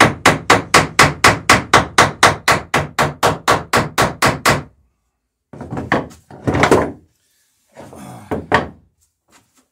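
Hammer peening a boat rivet: quick, evenly spaced blows about four a second that stop about halfway in, followed by a few scattered, irregular knocks.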